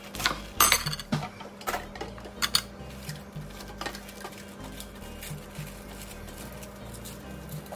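Kitchen knife cutting through a head of cos lettuce on a wooden chopping board, a handful of sharp knocks in the first few seconds. After that come quieter sounds of the leaves being pulled apart and dropped into a plastic salad spinner.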